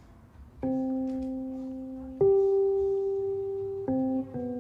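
Roland digital piano playing slow, held chords: four chords struck, each ringing on and fading, the last two close together near the end. It is the opening of an original composition.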